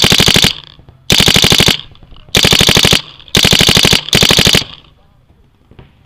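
DLX Luxe electronic paintball marker firing rapid streams of shots, heard from a camera mounted on its barrel: five quick strings of about half a second each, then a pause near the end.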